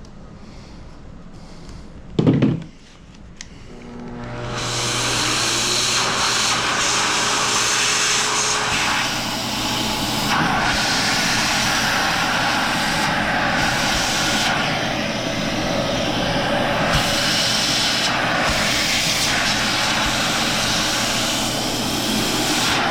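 A brief loud knock, then a small electric motor spins up about four seconds in and runs steadily with a loud hiss and a low hum.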